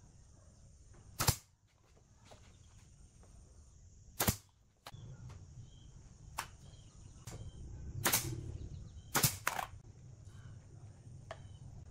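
Pneumatic nail gun firing nails into the wooden body, a series of sharp single shots a second or more apart, two of them close together near the end.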